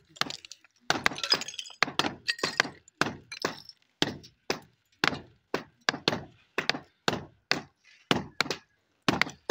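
Hammer blows breaking up old floor tiles on a concrete roof slab, about two strikes a second, with the clink and crackle of shattering tile.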